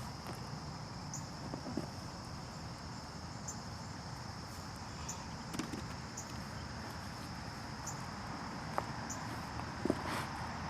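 Insects trilling outdoors: a steady high-pitched trill, with a short higher chirp repeating about once a second. A few faint knocks and rustles sound near the end.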